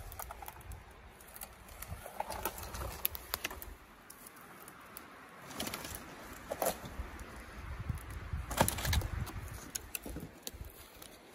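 Dead, punky conifer trunk cracking, creaking and splintering as it is pushed over and broken apart by hand. There are scattered sharp cracks, with the loudest crash about nine seconds in, over a low rumble of wind on the microphone.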